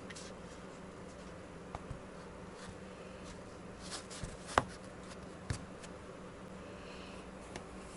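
Steady low hum of room noise, with a few light taps and clicks as a black foam sponge is handled and laid down on a cutting mat; the sharpest click comes a little past halfway, with a smaller one about a second later.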